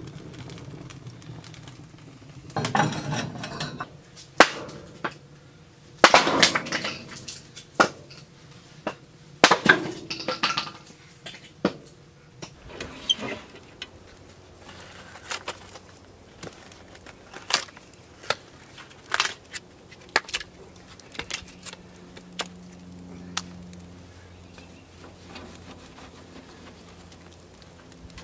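Metal and wood clattering: sharp clinks and knocks with a few longer rattling scrapes in the first half as a cast-iron cookstove lid is lifted off with a lid lifter. Later come scattered knocks of split firewood being loaded into the steel firebox of an offset smoker.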